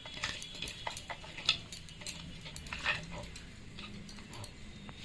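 Faint, scattered clicks and light scrapes of kitchen utensils and a bowl being handled, over a low background hum.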